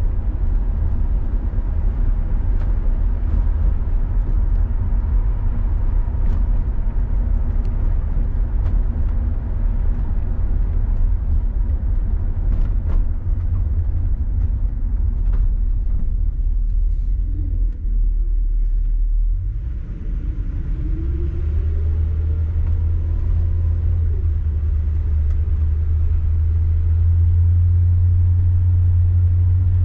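1966 Ford Galaxie 500's 352 V8 and road noise heard from inside the cabin while driving, a steady low rumble. About two-thirds through the sound dips briefly, then comes back deeper with a rising engine note as the car picks up speed.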